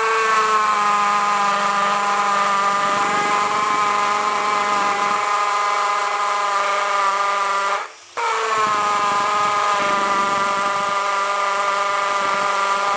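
Cordless drill with a 1/8-inch concrete bit running steadily as it bores through a wooden tack strip into a concrete floor. It stops for a moment about eight seconds in, then starts again, its whine settling a little lower under load after each start.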